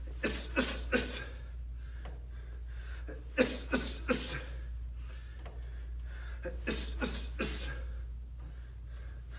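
A boxer's short, sharp exhales, one with each punch, in three quick groups of three or four as combinations are thrown.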